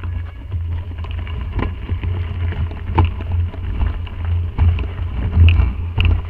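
Mountain bike descending a loose, rough dirt trail: wind buffets the microphone, and the tyres and frame crunch, rattle and knock over stones and bumps, with sharper knocks now and then. It grows louder as the bike gathers speed.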